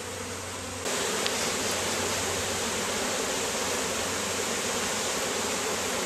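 Honeybee swarm buzzing as it is hived into a box: a dense, steady hum that grows louder about a second in and then holds.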